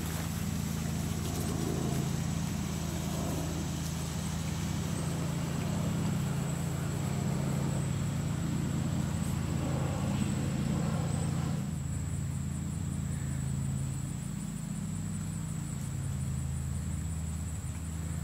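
Steady low hum of a running motor, with a faint high whine above it. A hiss over the hum stops suddenly about twelve seconds in.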